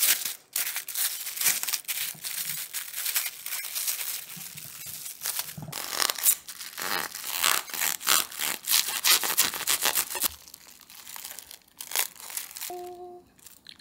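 Plastic cling wrap crinkling and crackling as it is pressed around a sandwich, then a serrated bread knife sawing through the wrapped sandwich, the wrap crackling with the strokes.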